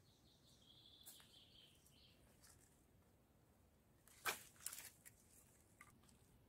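Quiet woodland with a faint high bird whistle about a second in, then, at about four seconds, a few short sharp snaps and rustles as wood is handled at a campfire.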